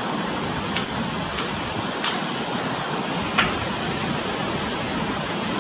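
Steady wind buffeting the microphone over the wash of ocean surf. A few faint ticks sound over it.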